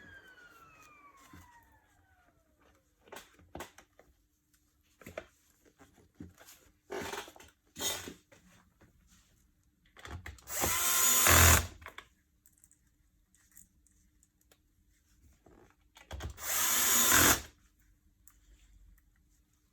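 Power drill/driver running in two short bursts of about a second and a half each, with handling clicks and knocks in between.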